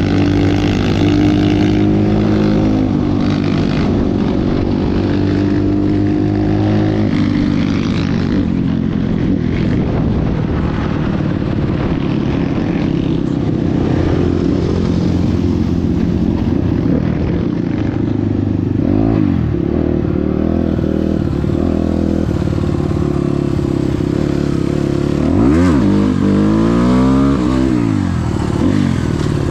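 Motorcycle engine running while riding, a steady engine note that shifts with the throttle; near the end the pitch swoops up and down a few times.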